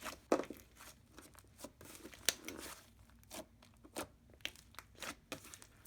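Butter slime being squished and stretched by hand, giving irregular small crackling pops and clicks: the 'sizzly' sound of this slime. There is a softer tearing smear a little over two seconds in.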